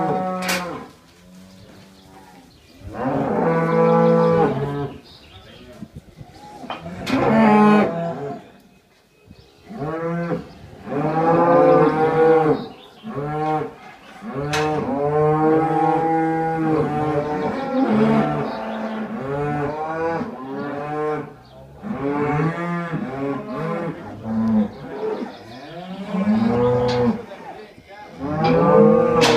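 Several cattle mooing over and over, long drawn-out calls that often overlap one another, with a few sharp knocks in between.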